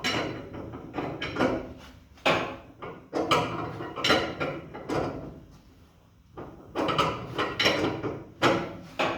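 Hand wrench turning the threaded rod of a coil-spring compressor: repeated short metallic strokes, roughly one to two a second, with a brief pause past the halfway point. This is the compressor being slowly backed off to let a car's front coil spring down from full tension.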